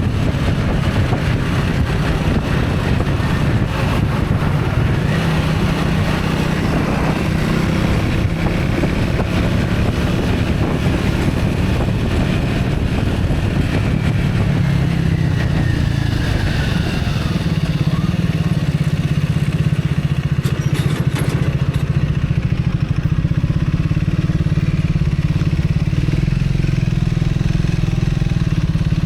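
A vehicle engine running steadily and loudly with traffic noise, and a faint tone sliding slowly downward around the middle.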